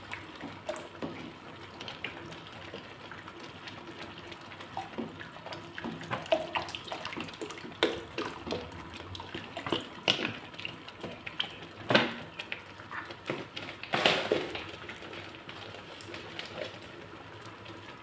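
Milk pouring in a steady stream into a wide pan of cooked grated carrots and rice, with a spatula stirring and knocking against the pan; the loudest knocks come about twelve and fourteen seconds in.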